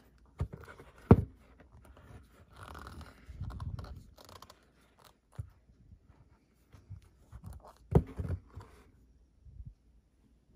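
Small items being handled and set down in felt-lined drawer trays: soft rustling and scraping with a few sharp clicks or knocks, the loudest about a second in and another near eight seconds in.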